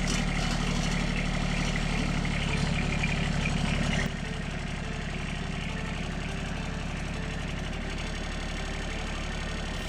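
Woodmizer LX150 bandsaw sawmill's engine running steadily through a cut, dropping in level about four seconds in.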